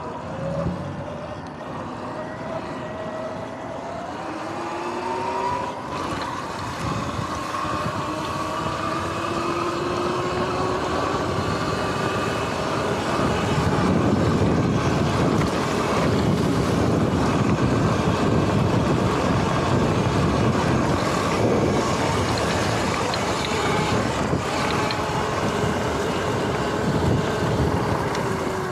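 Sur-Ron X electric dirt bike's motor and drivetrain whining, rising in pitch as the bike accelerates over the first few seconds and then holding steady. From about halfway, wind and the knobby tyres running over grass grow louder; near the end the whine drops in pitch as the bike slows.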